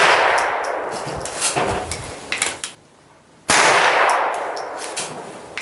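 A Marlin .22LR rifle firing .22 air-rifle pellets driven by nail-gun blanks: the loud echoing tail of one shot fades over the first second and a half, then a second shot cracks out about three and a half seconds in and rings off the same way. A few light clicks come between the shots.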